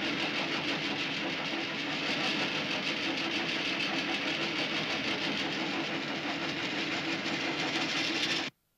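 Workshop band saw running steadily with a dense machine hum, which cuts off suddenly near the end.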